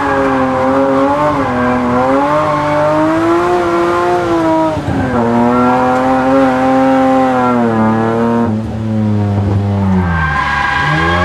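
BMW M5 E34's 3.6-litre S38 straight-six engine revving up and down hard while drifting. Its pitch swings continually, with a brief dip about five seconds in and a longer fall then a climb near the end.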